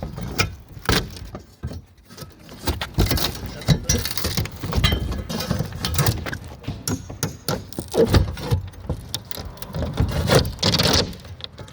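A roofing shovel prying up old plywood roof sheathing, with irregular knocks, clatters and scraping of metal against wood.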